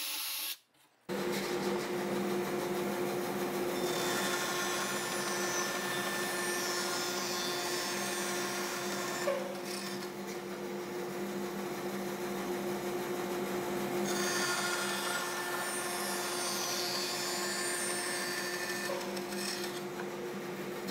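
Benchtop bandsaw running with a steady motor hum while its blade cuts slots into a wooden mallet handle. The cutting noise rises twice, about four and fourteen seconds in.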